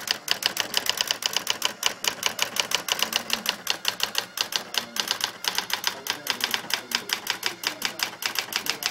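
Brother SX-14 electronic typewriter printing by itself in automatic mode: a fast, even run of sharp print strikes, about nine a second, without a pause.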